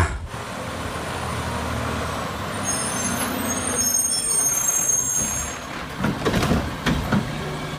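Garbage truck sound effect: a large truck's engine running with a hiss, and high brake squeals in the middle.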